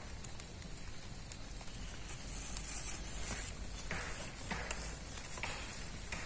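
Soft rustling and handling noises of a cloth torch being worked on the end of a bamboo pole, a few short rustles over a faint steady high hiss.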